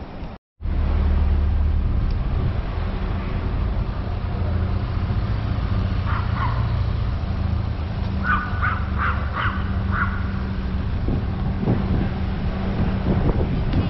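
Busy city street ambience: a steady low rumble of traffic with a held engine hum and wind on the microphone. Around the middle come a few short, higher calls, about five in quick succession. The sound drops out for a moment just after the start.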